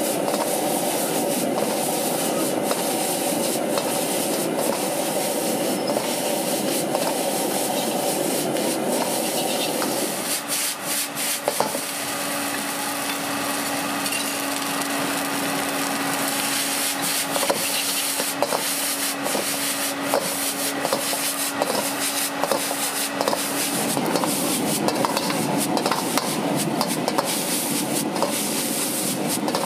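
Rice noodles stir-fried in a wok over a gas burner: the burner's steady rush, with a metal ladle scraping and knocking against the wok. The knocks come thick from about ten seconds in.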